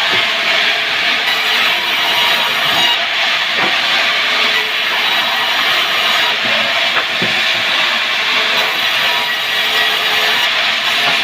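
Wood saw running and cutting timber: a loud, steady noise with a few faint knocks.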